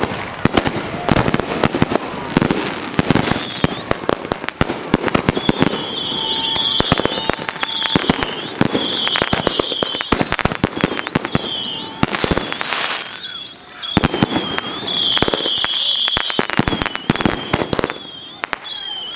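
Several fireworks going off together: a fast run of bangs and crackling, with high warbling whistles joining in from about six seconds in.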